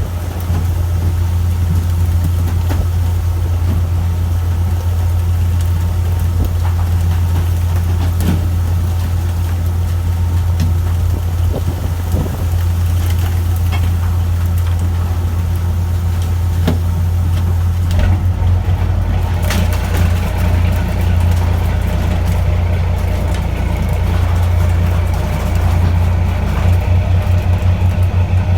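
Fishing boat's engine running with a steady low drone, with scattered short knocks. About 18 seconds in, the drone begins to throb unevenly.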